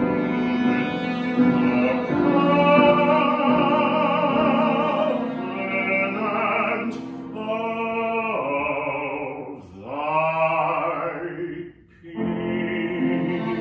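Operatic baritone singing long held phrases with a wide vibrato, accompanied by grand piano and cello. Near the end the voice breaks off for a moment and the level dips briefly before the piano and cello carry on.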